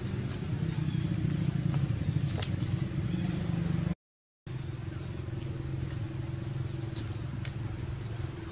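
Steady low hum of a running engine, with a few faint sharp clicks. The sound cuts out for about half a second roughly four seconds in.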